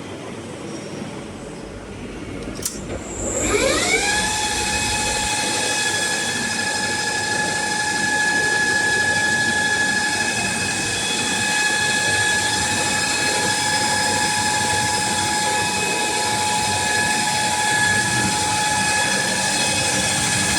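ZMM LS600M lathe spinning up: after a click, a whine rises in pitch about three seconds in and levels off into a steady machine whine that holds to the end.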